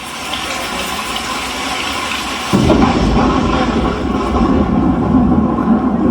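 Rain and rushing-water sound effect swelling in, joined suddenly about two and a half seconds in by a heavier, deeper rush of water.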